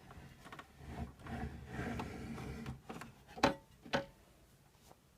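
Plastic parts of a Bosch Tassimo coffee machine being handled: a rubbing, sliding scrape, then two sharp clicks about half a second apart.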